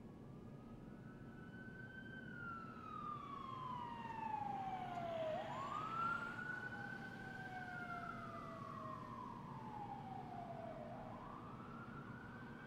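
Emergency vehicle sirens wailing faintly, more than one at once. Each wail climbs quickly and then falls slowly over about three seconds, repeating every five to six seconds.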